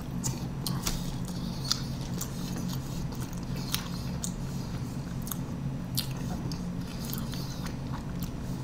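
A person chewing a mouthful of soft beef, rice and nacho-cheese burrito, with scattered small wet mouth clicks. A steady low hum runs underneath.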